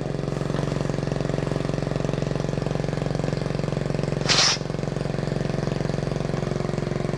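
Straight-piped 110cc Chinese quad's single-cylinder four-stroke engine running steadily, the open pipe giving a raw exhaust note. About four seconds in there is a short, loud burst of hiss.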